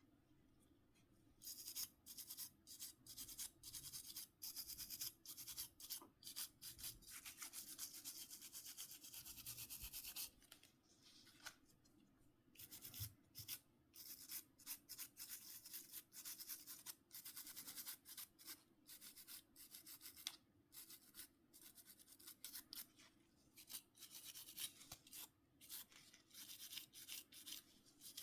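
Faint, quick scrubbing strokes of a small brush on the parts of a Nokia C5-00 phone being cleaned: a long run of rubbing strokes with a short pause about ten seconds in.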